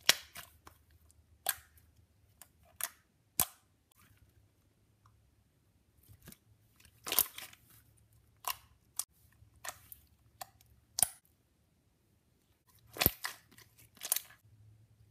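Glossy red slime being poked and squeezed by fingers, giving off irregular sharp pops and clicks as air pockets burst, with a brief lull after about eleven seconds.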